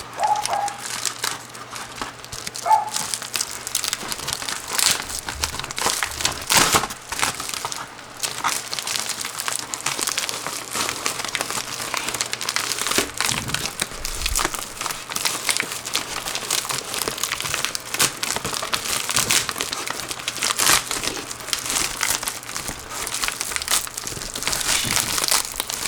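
A shipping package being opened by hand: irregular crinkling and rustling of packing material, with sharp crackles throughout.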